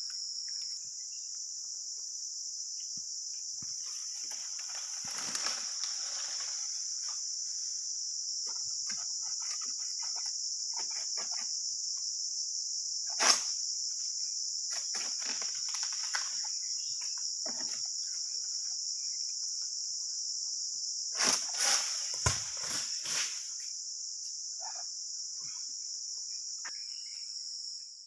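A steady, shrill chorus of insects, one high continuous drone. Over it come scattered rustles and knocks, the sharpest about 13 seconds in and a short cluster a little past 21 seconds.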